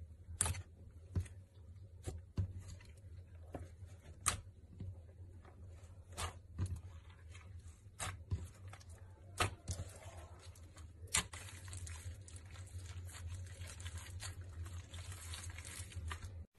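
Slime being squished and stretched by hand: irregular sticky pops and clicks, then a steady crackling from about ten seconds in that cuts off suddenly near the end, over a low steady hum.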